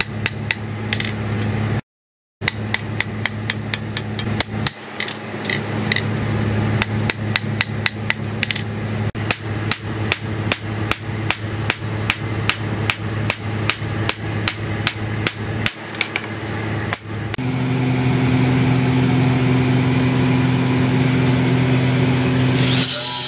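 Hand hammer striking a steel knife blade laid on a steel anvil, in a fast run of ringing metal-on-metal blows at about three a second, to shape and flatten the blade. The blows stop about seventeen seconds in, and a steady low hum carries on to the end.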